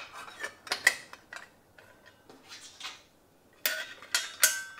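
Small metal clicks and clinks as a steel circular saw blade is seated on the arbor and the washer and arbor bolt are put back on by hand, with two brighter clinks that ring briefly near the end.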